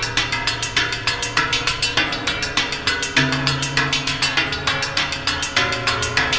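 Drumsticks striking the steel plates of a large metal sculpture in a rapid improvised pattern, about five hits a second. The plates ring with pitched tones that change every second or so as different parts are struck.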